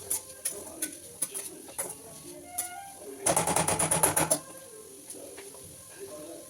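Scattered sharp clicks and knocks, with a run of rapid tapping, about ten strokes a second, lasting about a second midway; this run is the loudest part.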